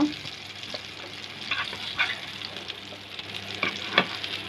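Fish pieces sizzling in hot oil in a frying pan, with a few light clicks of a utensil against the pan as the fried pieces are lifted out.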